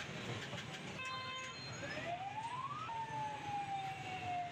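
A siren-like tone over the noise of a busy night street: a short steady blast about a second in, then a pitch that rises and a long tone that falls slowly.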